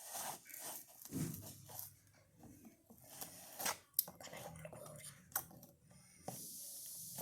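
Cardboard and plastic toy packaging being handled: scattered crinkles, clicks and scrapes, with a steadier rustle in the last second.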